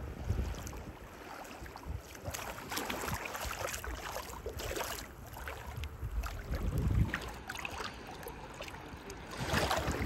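Shallow seawater lapping and sloshing, with wind gusting on the microphone in low rumbles.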